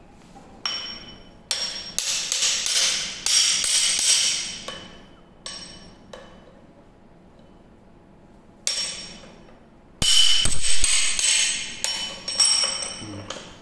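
Steel chisel bit knocking and clinking against the metal tool holder of a Makita HM1201 demolition hammer as it is fitted and worked by hand, with a ringing metallic tone after each knock. The knocks come in two clusters with a short quiet gap between them, and the loudest come about ten seconds in.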